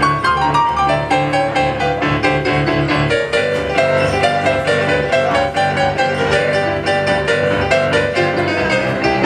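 Piano playing an instrumental break with no singing: a steady repeating bass pattern under a right-hand melody that steps downward in the first few seconds.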